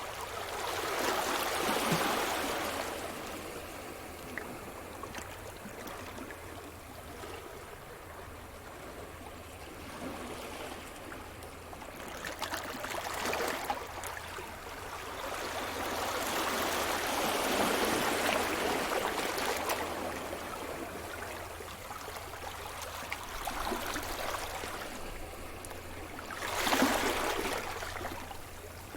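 Sea surf: waves breaking and washing up the shore in slow swells that rise and fall. There are three surges: one at the start, a long one in the middle, and a short, sharper one near the end.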